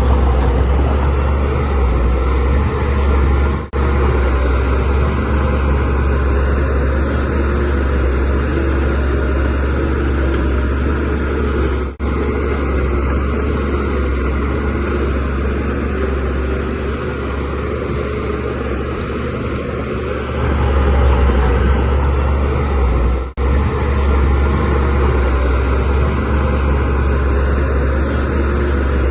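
Shantui DH17C3Pro bulldozer's diesel engine running steadily under working load, with a deep low drone and a louder stretch about three-quarters of the way through. The sound drops out very briefly three times.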